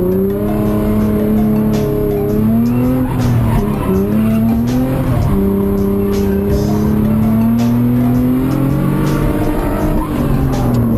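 Car engine held at high revs during a drift, the pitch dropping and climbing again several times as the throttle is worked, with tyres skidding and squealing.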